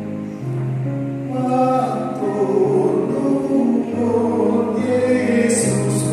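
Church choir singing a hymn in several parts, in long held notes.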